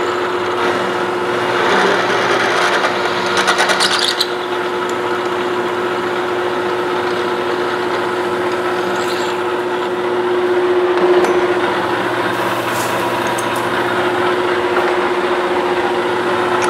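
Metal lathe running with a steady hum while a twist drill held in the tailstock chuck bores into the spinning metal workpiece, with a brief rattle about three to four seconds in.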